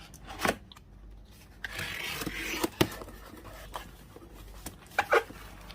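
Toy box packaging being opened by hand: rubbing and scraping of the box with a few light knocks and clicks, two close together near the end.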